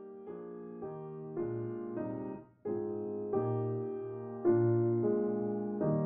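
Background music: a keyboard playing slow, sustained chords that change every half second or so, with a brief break about two and a half seconds in.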